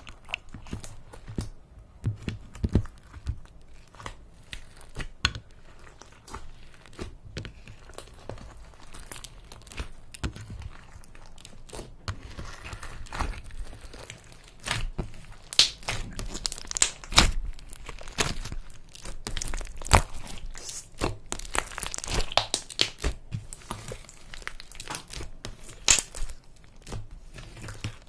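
Slime being squeezed and stretched by hand, giving irregular crackling, crinkling and popping noises, busier in the second half.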